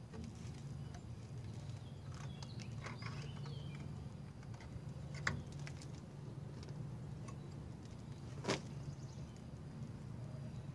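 Light metallic clicks and scrapes of rusty drum brake hardware, brake shoe and return springs, being worked loose from the backing plate of a truck's rear drum brake. There is a sharper click about five seconds in and the loudest one about eight and a half seconds in, over a steady low hum.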